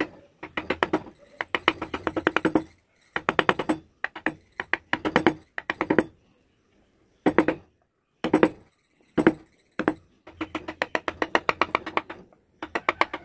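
Wood-carving chisel driven into wood with rapid taps, heard as short bursts of quick, sharp knocks with brief pauses between them.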